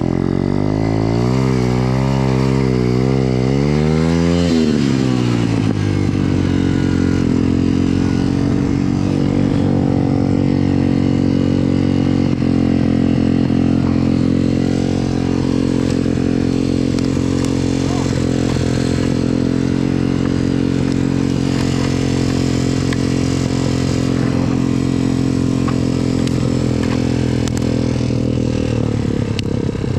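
BSE MX 125 pit bike's single-cylinder four-stroke engine under load in deep snow. For the first few seconds the revs swing rapidly up and down with the throttle. The pitch then drops briefly and settles into a steady high-rev run that eases off near the end.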